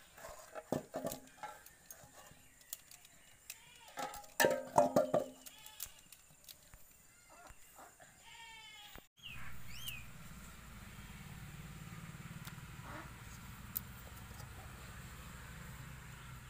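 Several animal calls with a wavering pitch in the first six seconds, the loudest about four to five seconds in. About nine seconds in the sound breaks off and gives way to a steady low hum with a few faint high chirps.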